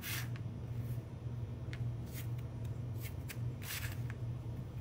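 Kitchen knife slicing a raw carrot lengthwise into thin strips, several separate crisp cuts. A steady low hum runs underneath.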